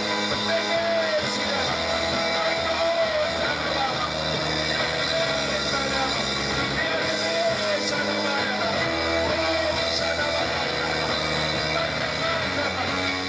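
Church worship music: held chords throughout, with a short melodic phrase that comes back again and again.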